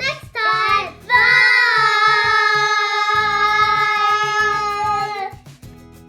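A child's voice sings a few short notes, then holds one long high note for about four seconds over background music, stopping a little after five seconds in; the music carries on more quietly.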